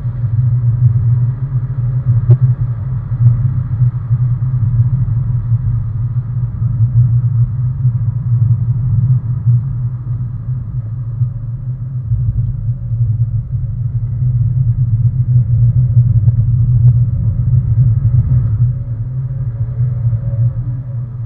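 Car engine and road noise heard from inside the cabin at speed on a track: a steady, muffled low drone, with faint changes in engine pitch near the end.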